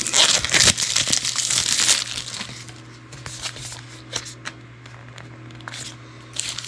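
Small cardboard product box and its packaging handled and opened by hand: crinkling and rustling, busiest in the first two seconds, then lighter scattered clicks and rustles.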